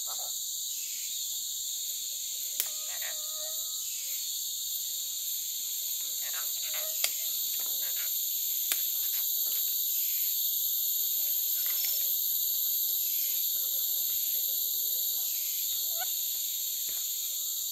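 Steady, high-pitched forest insect chorus droning without a break, with a few sharp clicks from fishing tackle being handled.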